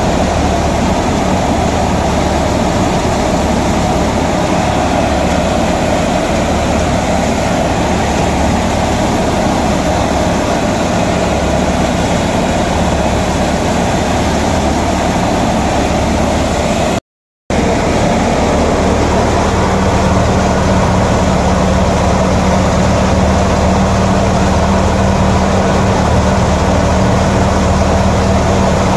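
Diamond thresher running steadily with the tractor behind it, threshing taramira (rocket) stalks: a loud, even mechanical drone. It cuts out for a moment a little past halfway, then carries on with a steadier low hum.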